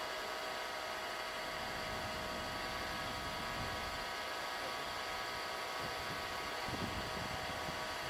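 Small electric motor salvaged from a hair dryer, driving a homemade car air-conditioning blower, running at a steady whir with a constant hum.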